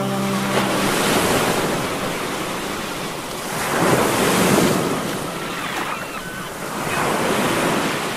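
Ocean surf breaking and washing up a sandy beach, a steady rushing wash that swells louder about four seconds in and again around seven seconds.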